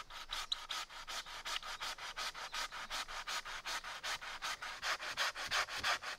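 Hand saw cutting through a green willow shoot, in quick, even back-and-forth strokes about four or five a second.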